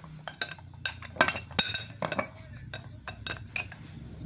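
Kitchen utensils and dishes clinking: an irregular run of sharp clinks, one ringing on briefly about a second and a half in.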